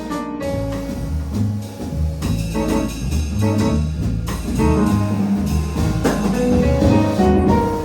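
Jazz trio of piano, bass and drum kit playing: held piano notes and chords over a bass line that steps from note to note, with steady cymbal strokes from the drums.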